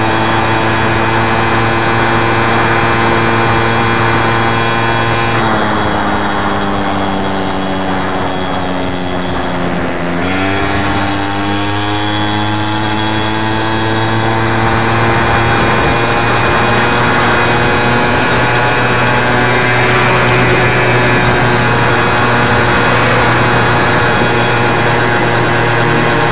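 Small two-stroke VéloSolex moped engines buzzing; one holds a steady pitch while another drops in pitch from about five seconds in, then climbs back up after about ten seconds as it picks up speed again.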